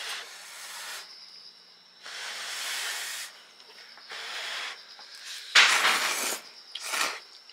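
Hot ramen noodles being slurped in a series of about five airy slurps, the loudest about five and a half seconds in.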